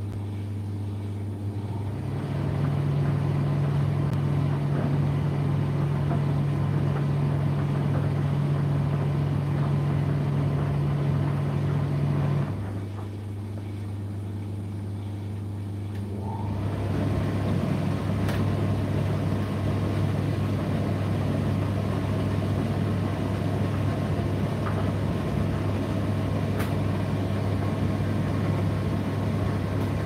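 Indesit IDC8T3 condenser tumble dryer running mid-cycle, a steady motor hum with the drum and fan going. About twelve seconds in it drops quieter for a few seconds, then picks up again near the halfway point. A few faint ticks come in the second half.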